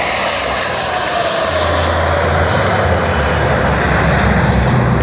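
Jet engines of four Blue Angels F/A-18 Hornets flying past in tight formation: a loud, steady rushing noise with a whine that falls slowly in pitch as the jets move away.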